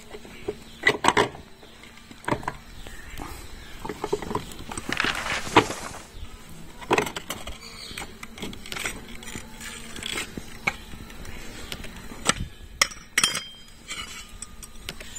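Scattered metal clinks and knocks as a scooter's CVT driven pulley and centrifugal clutch assembly is worked off its shaft, with a stretch of rubbing, scraping noise about five seconds in.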